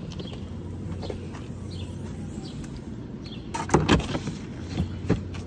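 A soft-sided suitcase is loaded into a hatchback's cargo area: a cluster of knocks and thumps about three and a half seconds in as it goes down onto the cargo mat, then two lighter bumps near the end, over a steady outdoor background hum.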